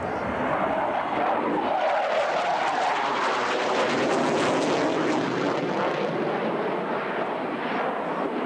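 Jet engine noise of a Panavia Tornado swing-wing fast jet passing overhead in a hard display turn: a loud, steady rushing roar that builds over the first second and eases a little near the end.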